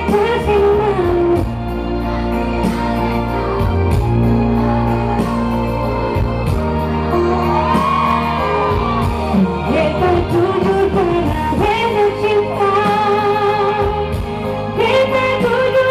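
A woman singing a pop song live through a large outdoor PA system over instrumental accompaniment with a steady bass, her held notes wavering with vibrato.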